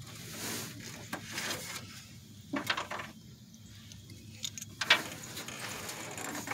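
Scattered clicks, knocks and rubbing as parts are handled and fitted by hand, with a few sharper clicks about halfway through.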